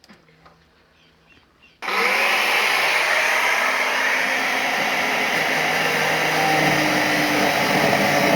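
A small electric motor with a fan switches on about two seconds in, spins up and runs steadily with a loud rushing hiss and a thin whine. Faint light taps come before it.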